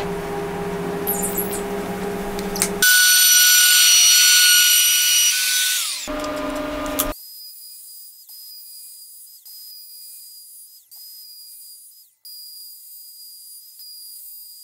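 Makita cordless trim router motor running, then a loud high whine for about three seconds that glides down as the motor spins down. After that only a faint high tone is left, cutting in and out every second or so.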